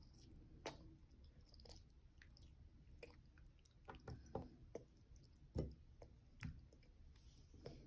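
A toddler chewing noodles with his mouth open: soft, irregular wet smacks and clicks, a few of them louder, over a quiet room.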